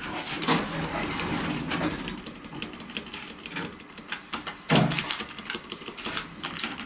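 ThyssenKrupp hydraulic elevator's doors and door mechanism rattling and clicking rapidly as the door-close button is worked, with a heavier thump a little under five seconds in.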